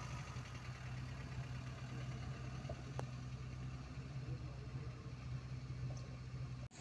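A vehicle engine idling with a steady low hum, with a brief drop-out near the end.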